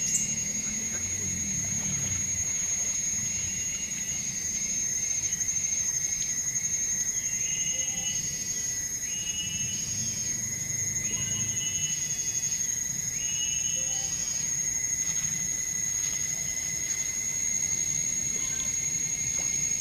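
Steady, high-pitched drone of forest insects running throughout. From about a third of the way in to about two-thirds, a series of short repeated chirping calls sounds at roughly one-second intervals.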